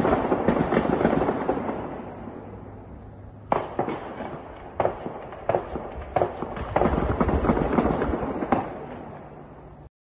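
Air-defence gunfire at night against attacking drones: a dense, continuous crackle of distant rapid fire, with about six louder, sharp single reports in the middle and later part.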